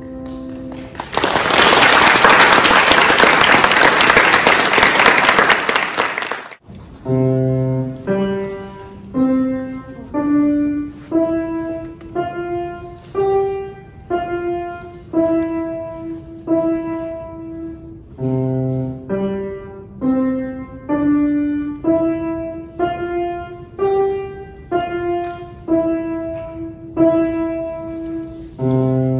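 Audience applauding for about five seconds, cut off abruptly. Then a grand piano played slowly, a simple melody one note at a time at about one note a second, with a low bass note now and then.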